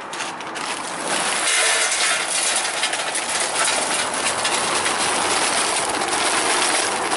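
Lumps of charcoal poured from a paper sack, clattering and rattling into a stainless-steel barbecue charcoal tray in a long continuous pour, with the paper bag rustling.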